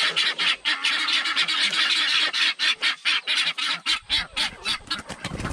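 A flock of young laying hens squawking and clucking loudly at feeding time, many short calls overlapping in a constant clamour.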